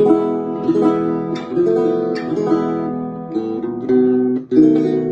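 1950s Cremona (Luby) parlor guitar played in a folk/blues style: a run of plucked chords and notes, with a brief break about four and a half seconds in.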